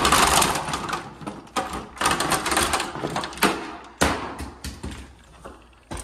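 Irregular knocks, clatter and rustling of hands working on the plastic parts of an opened ceiling air-conditioner cassette, loudest in the first three seconds and thinning out after.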